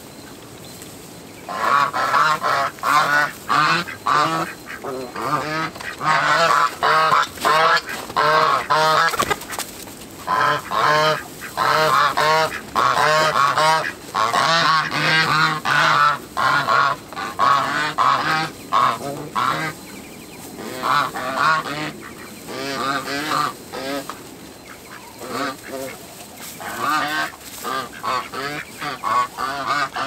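Domestic geese honking, a dense run of short repeated calls from several birds that starts about a second and a half in and thins out to scattered honks in the second half.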